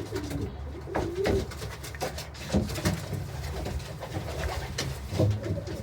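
Doves cooing, low wavering calls, with a few faint clicks of handling.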